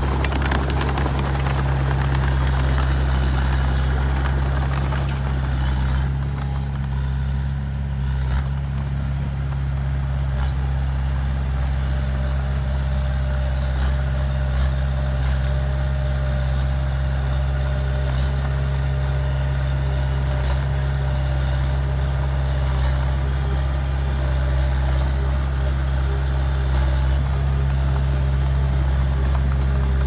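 Komatsu D20A crawler bulldozer's diesel engine running steadily with a low drone as the dozer pushes soil with its blade.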